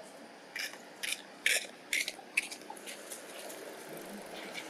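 A quick run of about six short, dry crunching sounds over roughly two and a half seconds, then only a low background.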